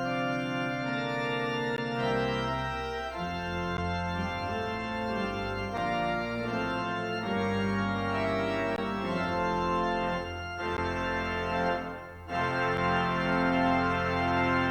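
Organ playing the postlude that closes a worship service: full sustained chords that change every second or two, with a short break about twelve seconds in before the music resumes.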